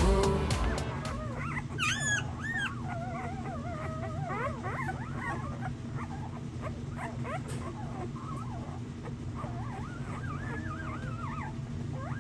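Cane Corso whining and whimpering in many short, high cries that rise and fall in pitch, over a steady low hum.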